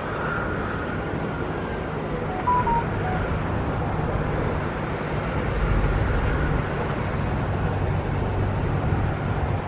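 Airbus A330neo's Rolls-Royce Trent 7000 turbofans running at low thrust as the airliner turns slowly at the runway end: a steady jet rumble. A few short high tones come through about two and a half seconds in.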